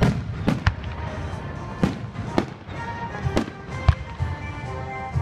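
Aerial fireworks going off: about seven sharp bangs at uneven intervals. Music with held notes plays under them, clearer in the second half.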